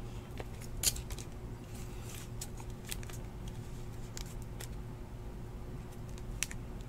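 A trading card being slid into a clear plastic sleeve and rigid plastic holder: light plastic scraping and rustling with a few sharp clicks, one about a second in and one near the end, over a steady low hum.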